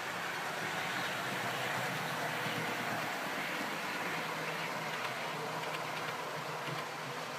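OO gauge model freight train of box vans running away along the track: a steady rumble of wheels on rail with a low motor hum, a little quieter near the end.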